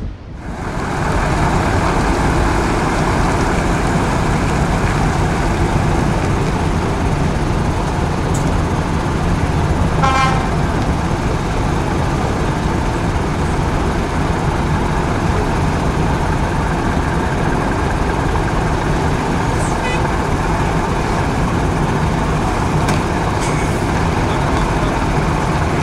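Steady rumble of lorry diesel engines and port traffic as trucks drive onto a ferry's loading ramp. A short horn-like toot sounds about ten seconds in, and a fainter one near twenty seconds.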